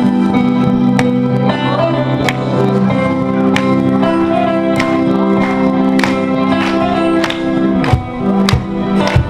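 Live band playing the instrumental introduction to a song: sustained chords over a steady drum beat, the chords thinning out and the drum hits standing out about eight seconds in.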